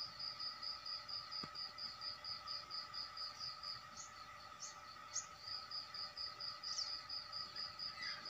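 Insects chirping in a steady run of high pulses, about four a second, over a faint steady high drone, with a few short rising chirps from about four seconds in.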